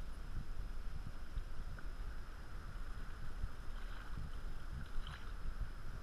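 Small waves lapping and splashing against a kayak's hull, with an irregular low rumble of wind on the microphone and a few faint splashes about two thirds of the way through.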